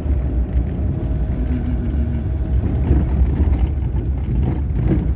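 Car cabin noise while driving over a rough, unpaved road: a steady low rumble of tyres and engine.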